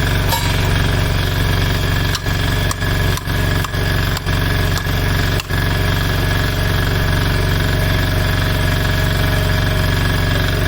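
An engine running steadily at a constant speed, with several brief dips in level in the first half.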